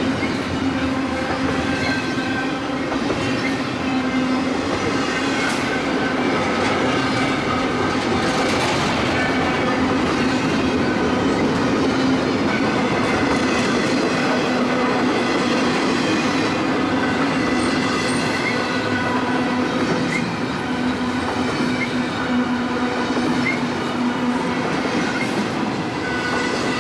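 Double-stack intermodal freight train rolling steadily past: continuous rolling noise and wheel clatter from the passing well cars, with a steady hum running through it.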